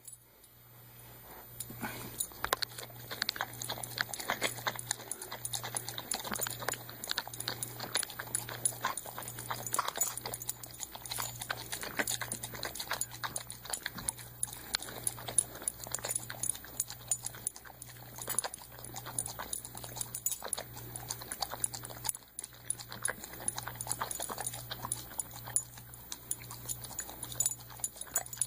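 A golden retriever eating and licking food out of cans, with quick, irregular clicks and scrapes of its tongue and muzzle against the cans.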